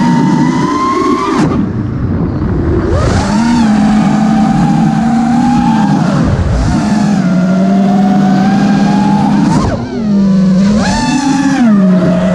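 FPV racing quadcopter's Emax Race Spec brushless motors and propellers whining, the pitch rising and falling with the throttle. The throttle drops off briefly about a second and a half in and again near the end, the whine falling away and then climbing back.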